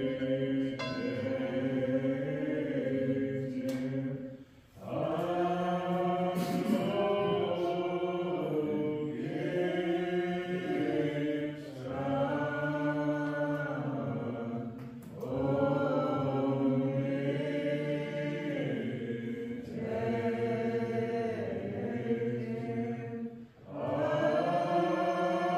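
A slow hymn sung by several voices together in long held phrases, each lasting a few seconds and separated by brief breaths.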